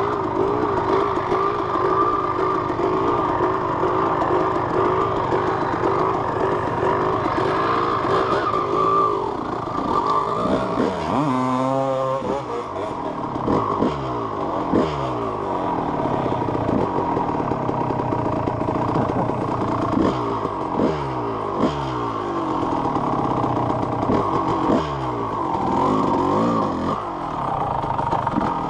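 Yamaha YZ250 two-stroke dirt bike engine, idling unevenly at first, then revved hard in repeated bursts as the bike rides off, the pitch dropping away each time the throttle closes.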